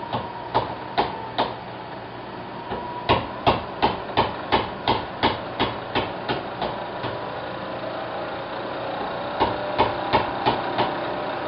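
Hammer tapping repeatedly in three runs of sharp strikes, about two or three a second: a few at the start, a long run of about a dozen in the middle, and a shorter run near the end. A faint steady machine hum runs underneath.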